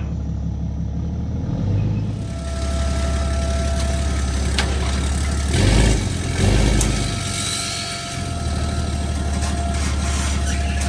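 An engine running steadily, surging twice briefly in revs a little past the middle before settling back.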